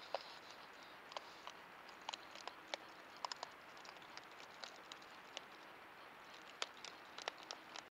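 Raccoons foraging and eating: faint, irregular clicks and crunches, a few a second, over a steady hiss from the trail camera's microphone.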